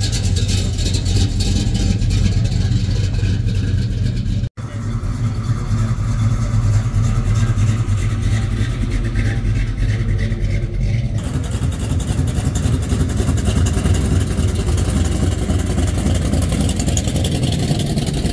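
Vehicle engine running steadily with a low, even tone, with voices in the background; the sound drops out for an instant about four and a half seconds in.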